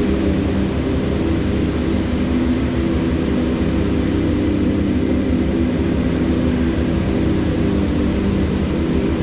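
Flowing river water, a steady rush, with a steady low hum beneath it.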